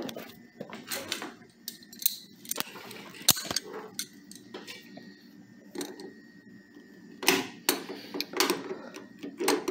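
Irregular clicks, clinks and knocks of a pair of metal pliers being picked up and handled, with the sharpest knock a little over three seconds in and a cluster of them near the end.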